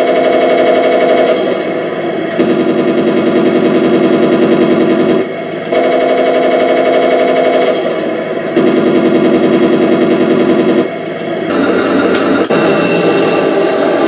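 Machine-gun sound effects from the Heng Long TK7.0 sound board in a 1/16 RC Leopard 2 A6, played through the model's small speaker. They come as bursts of about two to three seconds with short breaks, alternating between two different gun sounds.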